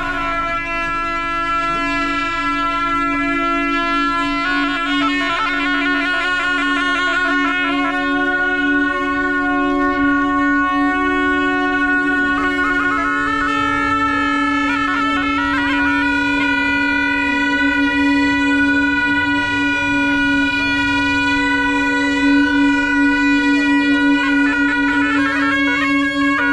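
Pair of Tibetan gyaling, monastic double-reed horns, playing continuously: a steady held note with a slow melody of long notes above it. Quick warbling ornaments come about five seconds in and again around fourteen seconds.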